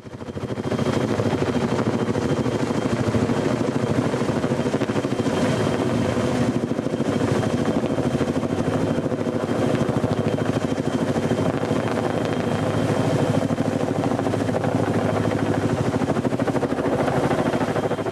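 Tandem-rotor heavy-lift helicopter hovering low overhead: a steady, rapid rotor chop with a thin high turbine whine above it.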